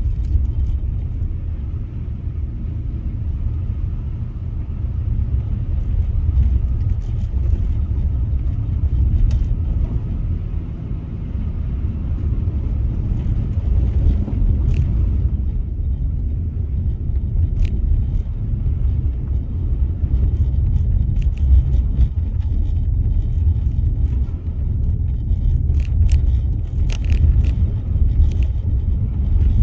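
Car driving on snowy roads, heard from inside the cabin: a steady low road and engine rumble, with a few faint clicks and knocks scattered through.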